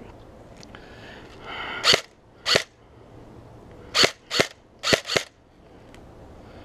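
G&G Raider CM16 airsoft electric M4 (AEG) firing six single shots, each a sharp crack. The first two are about half a second apart, then come two quick pairs.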